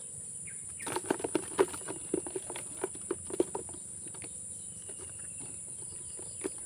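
Steady high-pitched insect chirring, with a run of quick, irregular taps and flaps for a couple of seconds starting about a second in.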